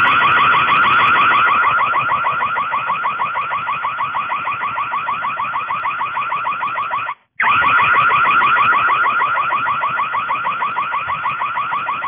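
Built-in siren of an Escam floodlight security camera sounding a rapid, high warbling alarm, set off by its PIR motion sensor. It cuts out briefly about seven seconds in, then resumes.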